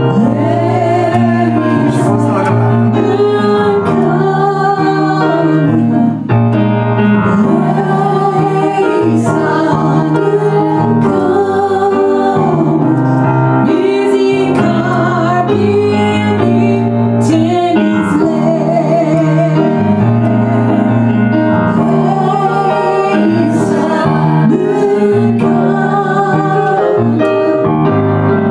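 Worship song: a woman singing over keyboard accompaniment, with sustained chords and bass notes under the melody.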